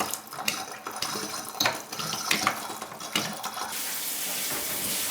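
Water from a tap splashing in uneven spurts, then running in a steady stream from a little under four seconds in.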